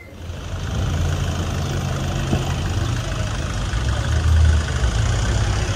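A vehicle engine running with a steady low rumble, as street traffic passes on a cobbled street, swelling slightly a little past the middle.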